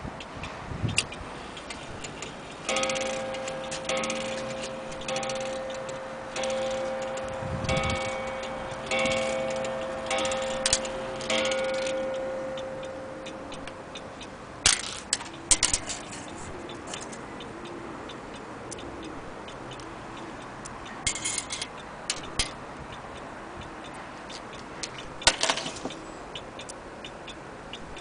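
Antique French slate and marble mantel clock striking the hour as its minute hand is set to twelve: about eight ringing strokes a little over a second apart, each dying away, over the steady ticking of the movement. Later come a few sharp clicks and knocks.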